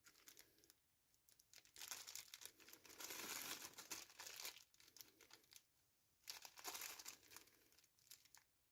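Packaging from a newly unboxed multimeter crinkling and rustling as it is handled: a long stretch of crinkling about two seconds in, a shorter one near the end, with small clicks in between.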